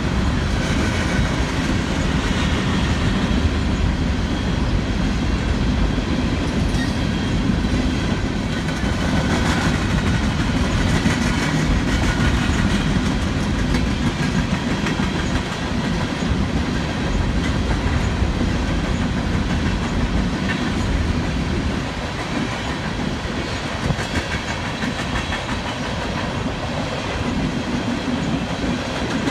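Coal hopper cars of a BNSF coal train rolling past, steel wheels on the rails making a steady rumble and clatter.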